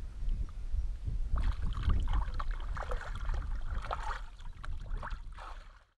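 Shallow river water splashing and sloshing around hands releasing an asp, irregular splashes from about a second and a half in, over a low wind rumble on the microphone. The sound fades out just before the end.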